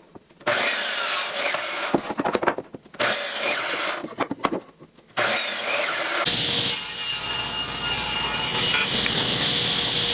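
Power saw cutting a 2x4 board: a few short cuts broken by brief pauses, then a steady cut with a thin high whine from about six seconds in.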